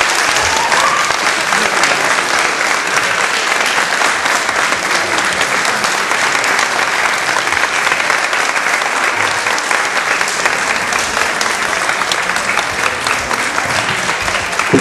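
Audience applauding steadily and loudly: a dense, continuous patter of many hands clapping.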